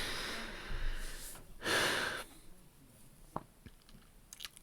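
A man breathing audibly: a long breath out, then a second shorter breath about a second and a half in, followed by near quiet with a few faint mouth clicks.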